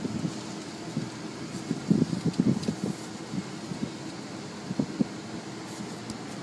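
Steady mechanical hum and rushing air, heard from inside a waiting car at a car wash entrance, with a few low bumps about two and five seconds in.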